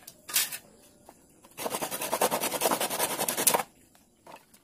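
A knife blade scraping along a wooden stick in quick repeated strokes for about two seconds, after a single sharp knock about a third of a second in.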